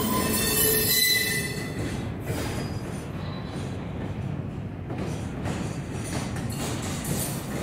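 Intermodal freight train's loaded well cars rolling slowly past, the wheels squealing in several high tones for about the first second, then a steady rumble of wheels on rail.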